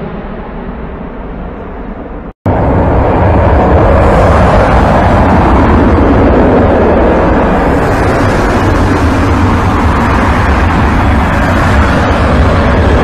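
Jet engines of a large military transport aircraft flying low. About two seconds in the sound cuts out for an instant and comes back much louder: the four turbofans of a C-17 Globemaster III passing close at low altitude, a loud, steady noise.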